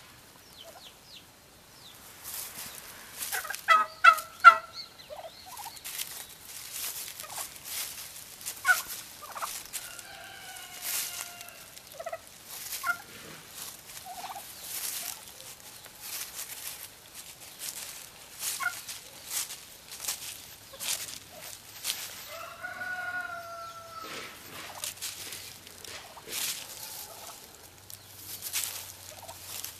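Domestic white turkeys gobbling, with a loud, rapid burst of gobbling about four seconds in and further shorter calls later. Between the calls there is rustling and crunching of feet in dry fallen leaves.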